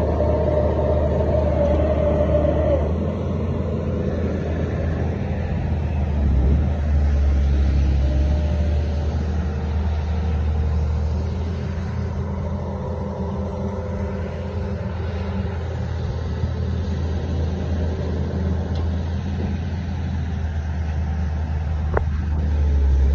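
Heavy diesel engine of a piling machine running with a steady low rumble. A steady whine over it cuts off about three seconds in.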